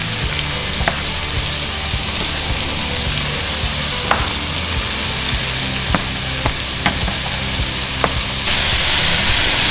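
Oil sizzling steadily in a hot stainless steel pan of searing scallops, with a spatula stirring risotto and scraping the pan in a few sharp clicks. The sizzle gets louder about eight and a half seconds in.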